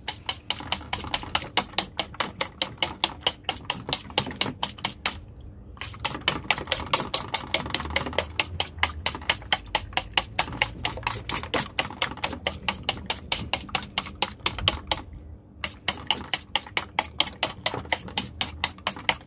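Fork beating raw eggs in a stainless-steel plate, clicking fast and evenly against the metal, about six strokes a second. The beating stops briefly twice, about five seconds in and again about fifteen seconds in.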